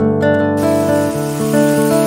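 Acoustic guitar background music. From about half a second in, a steady hiss of chicken and bacon pieces sizzling in olive oil in a frying pan comes in under the music.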